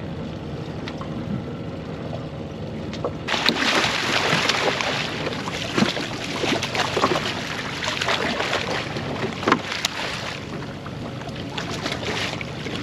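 A hooked thresher shark thrashing at the surface against the boat's side, loud splashing and slapping water that starts suddenly about three seconds in and eases off near the end.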